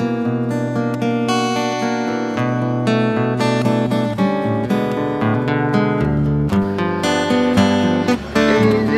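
Background music: an acoustic guitar strummed and picked, playing a steady melody.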